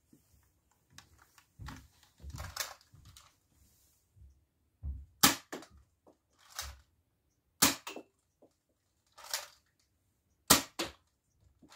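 Nerf Hammershot, a hammer-action spring pistol, firing foam darts: five sharp snapping shots a second or two apart, each with a short knock right after. Fainter clicks come before the shooting starts.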